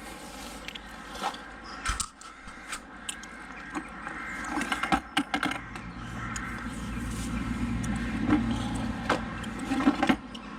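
Close handling noise of gear being fitted on: scattered clicks, knocks and scrapes, with a low rumble building from about halfway through.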